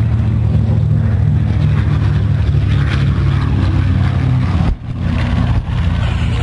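Piston engines of low-flying World War II warbirds droning steadily overhead, most likely the B-25 bomber and its P-51 Mustang escort on a bombing pass. The sound breaks off for a moment about five seconds in.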